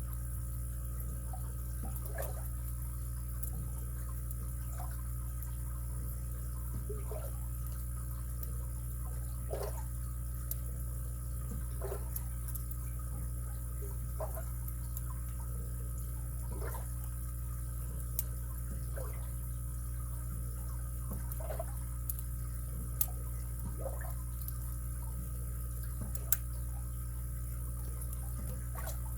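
Lock picks working inside a padlock under a steady low hum: faint, scattered short clicks and scrapes every second or two, with a few sharper ticks in the second half.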